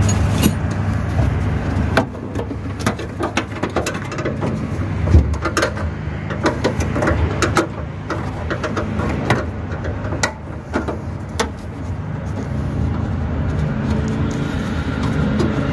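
Scattered clicks and small knocks of pliers and metal and plastic parts being handled at a car's trunk lid latch, over a steady low hum.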